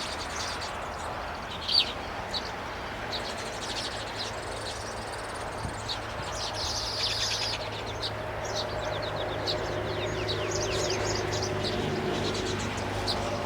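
Small birds chirping and twittering in quick, high, sweeping notes, with a busier wheezy run of calls about halfway through. A steady low motor-like drone comes in partway through.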